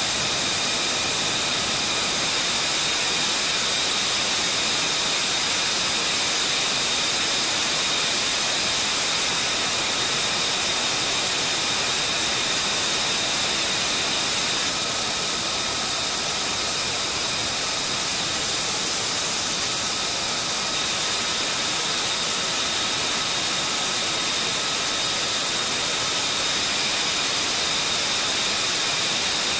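Fighter jet engines running on the flight line: a steady loud rushing hiss with high whining tones over it, the whine shifting slightly about halfway through.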